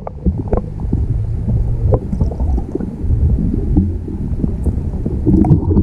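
Muffled rumble and gurgle of stream water heard through an underwater camera, with scattered knocks and clicks, most likely from hands and the grayling moving in the shallow current.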